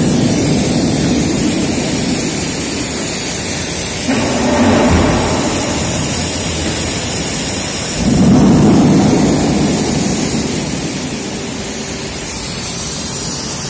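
Loud steady rumble of steel plate mill machinery at the hot leveller and its motor-driven roller table, swelling louder about four seconds in and again, most strongly, about eight seconds in.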